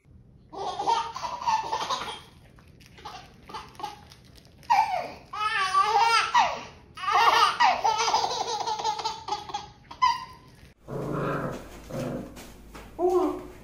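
A baby laughing in repeated bursts of high, wavering giggles for about ten seconds. Near the end the laughter stops, leaving quieter short voice sounds and a few clicks.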